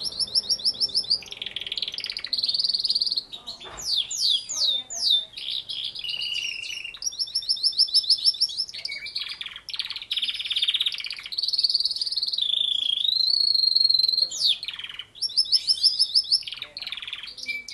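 Domestic canary singing a long, continuous song: phrases of fast repeated notes alternating with rolling trills and sliding whistles, changing every second or two with only brief breaks. A longer, steadier held phrase comes about two-thirds of the way through.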